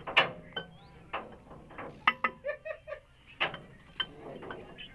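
Steel box spanner and long tommy bar on a truck's wheel nuts, giving several sharp metal clanks and clinks at irregular intervals as the bar is fitted and worked to loosen the nuts.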